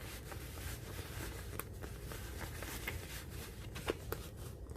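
Quiet handling of the diamond painting kit's packaging: faint rustling with a few light clicks over a low steady hum.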